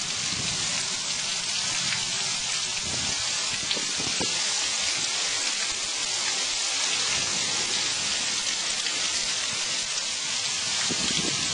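Heavy rain pouring down in a thunderstorm, a steady, even hiss.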